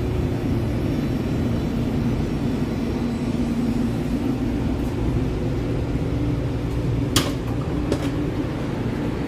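Steady low hum of a CTrain light-rail car standing at a station platform, with a sharp click about seven seconds in and a fainter one shortly after.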